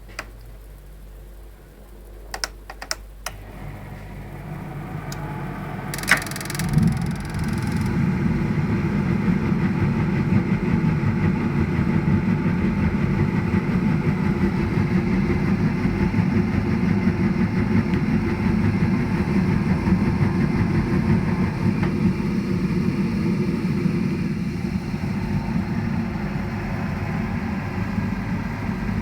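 BAXI Main 5 gas boiler: a few sharp clicks in the first three seconds, a brief hiss about six seconds in, then the boiler runs with a steady low roar to the end. The clicks fit the knocking of the boiler's gas valve.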